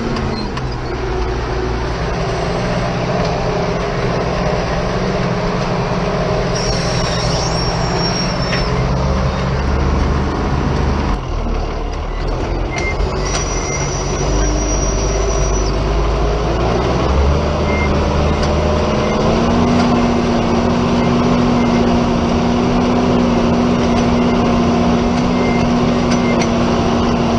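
Ford TW-25 tractor's six-cylinder diesel engine running steadily under load pulling a disc harrow, its note rising a little about two-thirds of the way through. Two brief high whines come partway through.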